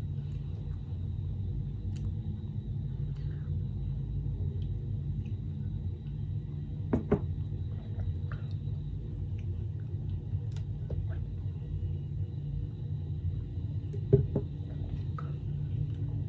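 Steady low room hum, with a few faint clicks and two brief vocal sounds, about seven and fourteen seconds in, from a person silently tasting a drink.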